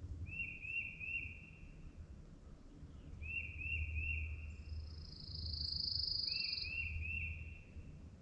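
Songbirds singing. One bird repeats a short three-note whistled phrase about every three seconds, and another gives a single long trill, higher-pitched and louder, about five seconds in.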